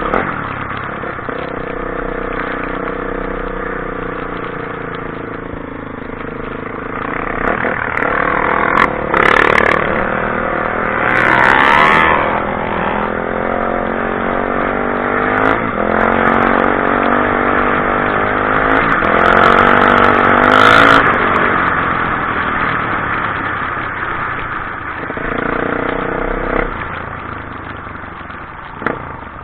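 Motor vehicle engines running, their pitch slowly rising and falling as they swell louder and fade, like traffic going by.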